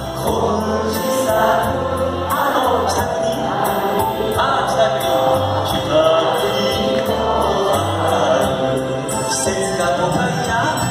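Live enka song: a male singer's voice carrying a melody over an amplified backing band with a steady bass pattern and light percussion.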